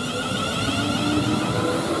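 Class 350 Desiro electric multiple unit running into the platform, its traction motors whining over a low rumble of wheels on the rails, getting louder as the cab passes. One tone in the whine climbs slightly in pitch.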